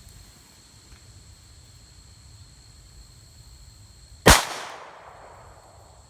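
A single 9mm pistol shot from a Glock 23 Gen 4 fitted with a Lone Wolf conversion barrel, about four seconds in, with a short decaying echo after it.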